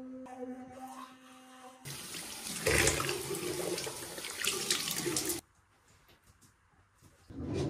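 Water running from a tap into a sink for about three and a half seconds, then cut off suddenly.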